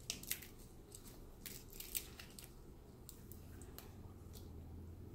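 Faint crisp crackling and tearing as the charred skin is peeled off a grilled eggplant by gloved hands: a cluster of sharp crackles in the first two seconds or so, then a few scattered ones, over a low steady hum.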